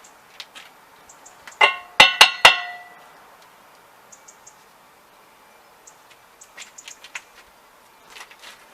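A metal tool striking an old rusty iron wheel: four quick ringing clangs about two seconds in, followed by a few faint clicks and scrapes.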